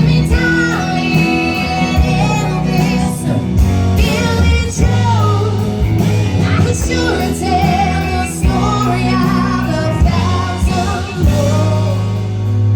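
Live country band music: a stretch of the song without transcribed lyrics, a wavering lead melody over steady bass and regular drum beats.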